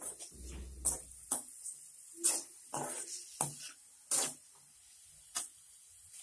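A perforated steel spatula scraping and knocking against a metal kadai as chopped onions are stirred and tossed while they sauté. About seven sharp scrapes come at irregular intervals.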